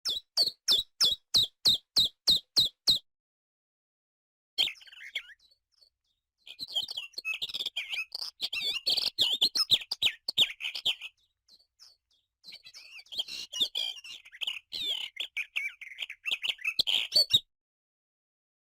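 Small birds chirping. It opens with about ten quick, evenly spaced high chirps, three a second. After a pause comes a dense, busy chatter of chirps in two long stretches.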